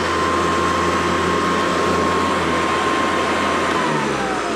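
Hoover Decade 800 Heavy Duty upright vacuum cleaner's motor running at full speed with a steady high whine. Near the end the whine starts falling as the motor winds down.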